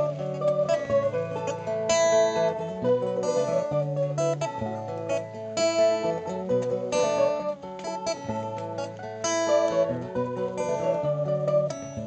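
Instrumental break of a folk song: an acoustic guitar strummed steadily while an electric mandolin picks the melody over it.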